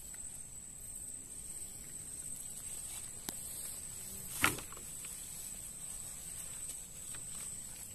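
A cast net being hauled back through shallow river water by its rope, with one brief splash about four and a half seconds in and a faint click a little before it. Behind it runs a steady high-pitched insect drone.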